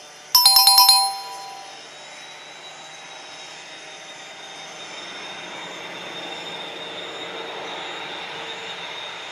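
A short, loud run of quick chime notes about half a second in. It gives way to the steady rush of an Airbus A330-300's CF6-series jet engines, with a thin high whine, slowly growing louder as the airliner comes closer with its gear down.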